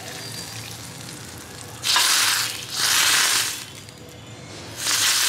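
Hot tadka oil with spices sizzling on the chana masala gravy in three short bursts, about two, three and five seconds in.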